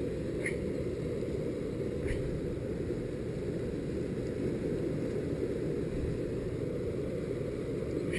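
Steady low rushing of flowing river water below a dam, even and unbroken, with two faint ticks about half a second and two seconds in.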